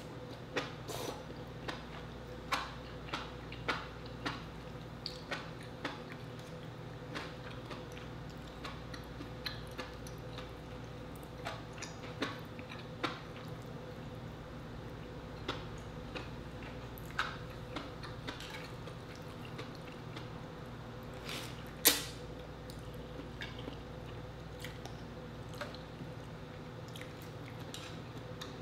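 Close-miked eating sounds: noodles and seafood slurped and chewed, with short wet mouth clicks and smacks scattered throughout and one louder click about three-quarters of the way through.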